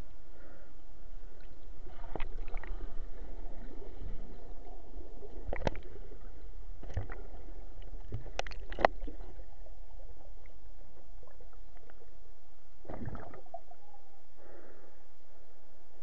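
Creek water heard underwater: a steady low rumble of the current, with scattered sharp clicks and knocks, most of them between about 2 and 9 seconds in, and a short burst about 13 seconds in.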